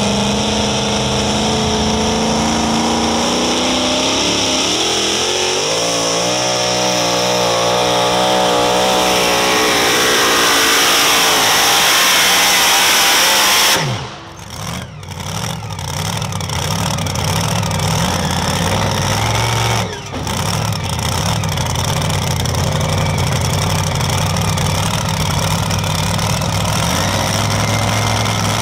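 Supercharged engine of a super modified two-wheel-drive pulling truck at full throttle dragging the weight-transfer sled, its engine speed rising and wavering up and down. About fourteen seconds in the throttle is chopped sharply at the end of the pull, and the engine then idles steadily.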